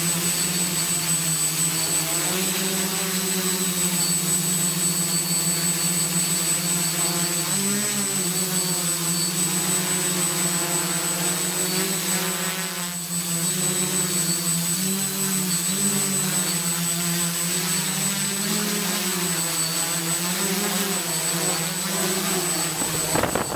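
Quadcopter motors and propellers humming steadily, the pitch wavering up and down as the craft manoeuvres, then cutting off suddenly at the end.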